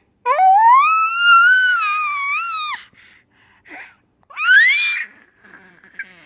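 Baby squealing in delight: one long high-pitched squeal that rises, holds and drops away, then a shorter squeal sweeping upward about four seconds later.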